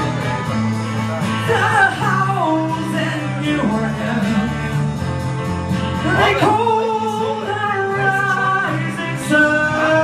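Man singing live into a microphone over guitar accompaniment. His voice slides through pitch runs and holds long notes.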